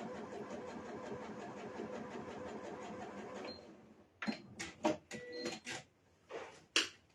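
Elna eXperience 570A computerised sewing machine running steadily as it top-stitches a zipper, stopping about three and a half seconds in. A handful of sharp clicks and knocks follow.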